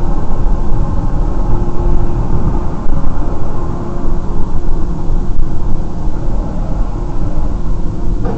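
Steady road and engine noise inside a moving car, picked up by a dashcam microphone: a loud, even rumble.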